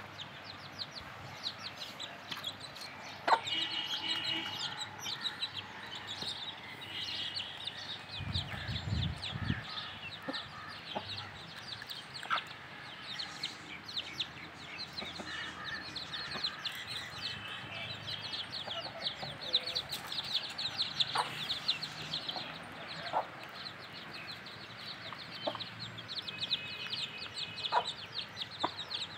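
Aseel chicks peeping in a constant run of quick, high notes, with hens clucking among them; a few sharp clicks and a brief low rumble about eight seconds in.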